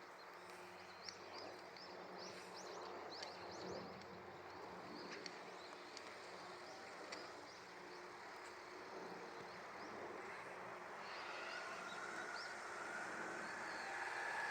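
Faint outdoor ambience with small birds chirping now and then during the first few seconds. About eleven seconds in, a steady tone in two pitches comes in and grows slightly louder.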